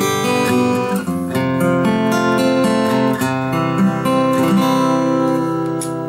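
Seagull S6 Original acoustic guitar with Elixir Nanoweb light strings, played with a Graph Tech Tusq Vintage (warm-tone) pick: chords picked string by string, the notes ringing over one another. The playing eases off near the end, letting the last notes ring.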